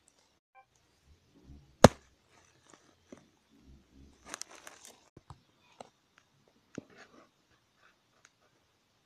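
Scattered crackling and crunching of dry leaves and grass, with a sharp knock about two seconds in and a cluster of crackles near the middle, as the camera and toys are handled on leaf-strewn ground.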